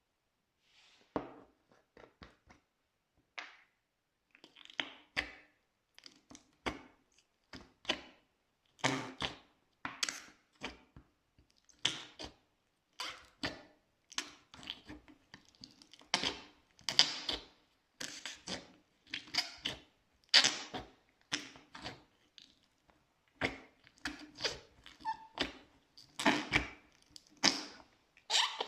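Slime being squished: irregular wet clicks, pops and crackles, some in quick clusters, with short squelches.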